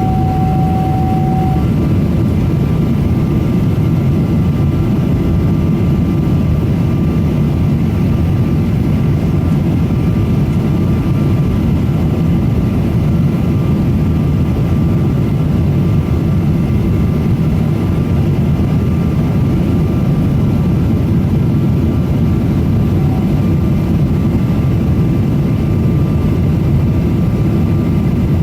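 Steady cabin noise inside a Boeing 777-200 airliner: a constant low rumble of engines and airflow with faint steady whining tones. A short steady tone sounds right at the start.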